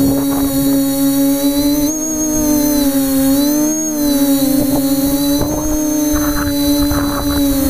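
Multirotor drone's motors and propellers whining steadily, the pitch shifting briefly about two seconds in and again near four seconds as it manoeuvres, with gusts of wind rumbling on its on-board microphone.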